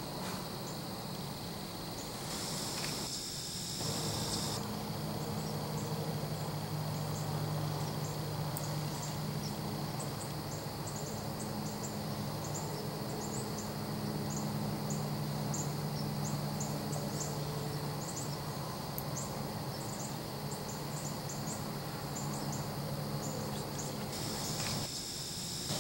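Evening field ambience: insects chirring steadily, with many short high chirps scattered through it. A low steady hum runs underneath for most of the time.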